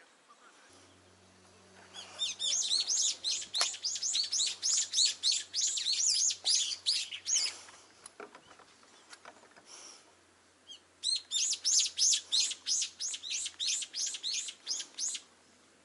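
A songbird calling in two long runs of quick, sharp, repeated notes, about four a second. The first run starts about two seconds in and lasts some five seconds; the second comes about three seconds later and lasts about four.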